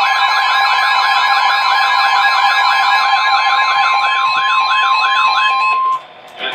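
Weather radio alert alarm: a fast warbling, siren-like tone over a steady high tone, both cutting off shortly before the end. It signals that a new weather warning is about to be read.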